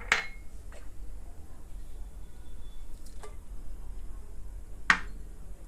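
Kitchen utensils clinking against cookware: a sharp clink at the start and another near the end, with a few fainter taps in between, over a low steady hum.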